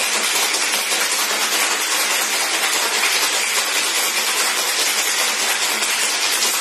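Ice cubes rattling in a metal cocktail shaker shaken hard and fast: a loud, continuous rattle. It is the iced wet shake of an egg-white whisky sour, chilling the drink after a dry shake.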